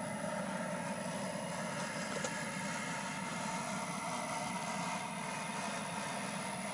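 A 38,000 BTU LP gas burner in a smoker's firebox running: a steady rumble with a faint hiss above it.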